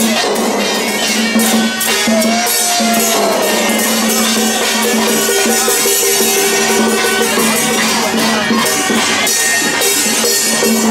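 Taiwanese temple-procession music: shrill reed horns (suona) playing held and sliding notes over a steady clatter of drums and cymbals.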